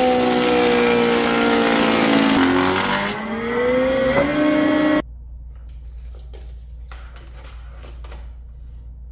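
Woodworking planer (jointer or thickness planer) cutting a board: the motor's whine drops in pitch under the load of the cut and climbs back as the load eases. It stops suddenly about five seconds in, leaving a quieter low steady hum with faint ticks.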